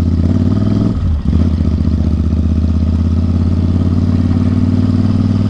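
Royal Enfield Interceptor 650 parallel-twin engine running under way through a loud Atom full-system exhaust, a steady deep exhaust note that dips briefly about a second in.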